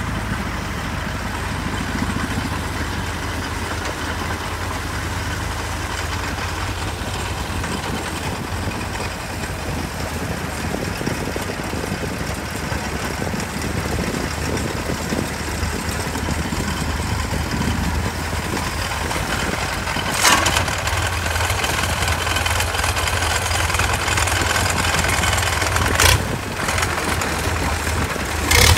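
Tracked hydraulic excavator's diesel engine running steadily as the machine works through riverbank mud, with a sharp knock about two-thirds of the way through and another near the end.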